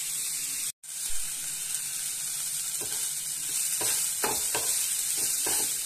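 Brinjal, neem leaves and poppy seeds frying in a kadai, sizzling steadily, while a wooden spatula stirs and scrapes the pan with several scraping strokes in the second half. The sound drops out completely for a moment under a second in.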